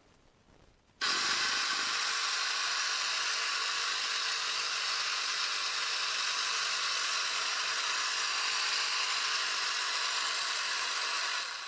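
Small 12-volt air compressor in a MotoMaster Eliminator booster pack, its electric motor and piston pump switched on about a second in and running steadily and loudly, then cutting off near the end.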